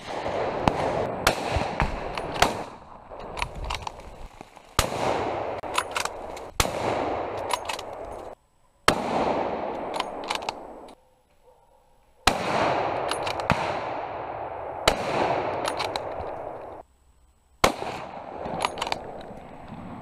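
Hunting rifle shots fired one after another, many in all, each a sharp crack with a long echoing tail, in groups broken by sudden short silences.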